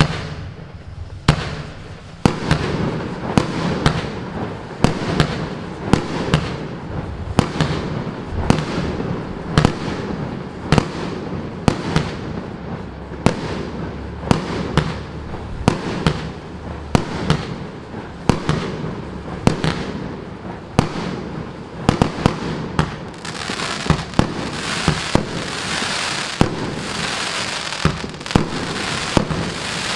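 A 19-shot, 30 mm firework cake (Evolution Fireworks Go4Gold) firing a steady run of shots, more than one a second, each launch followed by its burst. About three-quarters of the way through, the next cake takes over and a steady hiss fills the gaps between shots.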